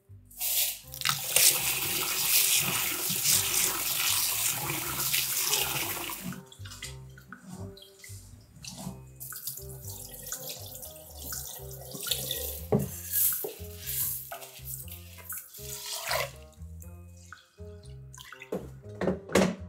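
Kitchen tap running into a bowl of rice for about five seconds, then rice being rinsed: water sloshed and the cloudy rinse water poured off into the sink, and grains swished by hand in water in a rice cooker pot. Soft background music runs underneath.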